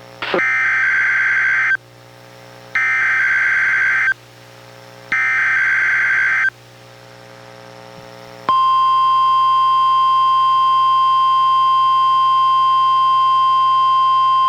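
NOAA Weather Radio alert signal played by a Reecom R-1630 weather radio: three short bursts of warbling SAME header data, about a second apart, then, about eight and a half seconds in, the steady 1050 Hz warning alarm tone begins and holds. This is the alarm sounded for the required weekly test.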